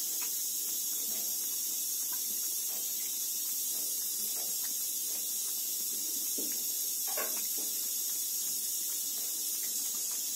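Thin stream of water running from a bathtub tap into the tub, a steady hiss. Faint irregular ticks and small splashes come through it as a cat laps at the stream, one a little louder about seven seconds in.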